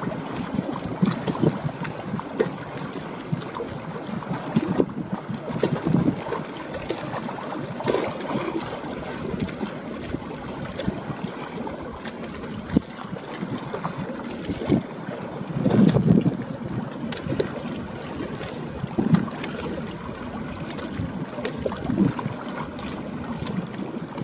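Wind buffeting the microphone in irregular gusts over a steady rush of water, with the strongest gust about two-thirds of the way through.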